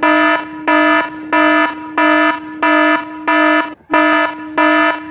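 An electronic alarm beeping in a steady rhythm, about one and a half buzzy beeps a second over a quieter continuous tone, with a brief break a little past halfway.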